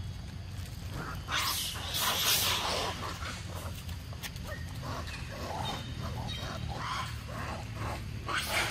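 Pig-tailed macaques making short calls, with a louder rush of noise between about one and three seconds in, over a low steady hum.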